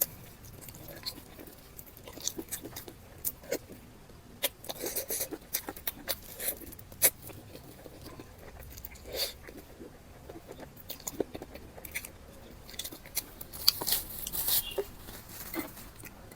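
A person eating close to the microphone: irregular wet chewing, mouth smacks and a few crunchy bites.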